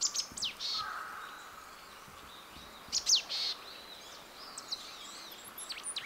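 Marsh tit calling: quick, high notes sweeping steeply down, each group ending in a short rasping note. The calls come in two bursts, just after the start and about three seconds in, with softer chirps between them and more calls near the end.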